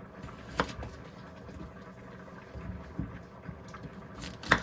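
Kitchen knife chopping vegetables on a cutting board: a few sharp knocks, one about half a second in, a couple of fainter ones around three seconds, and the loudest near the end.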